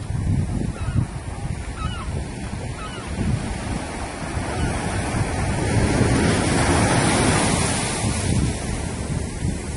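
Ocean surf breaking and washing over the shallows, swelling to its loudest about six to eight seconds in, with wind rumbling on the microphone. A few faint, short, high calls in the first three seconds.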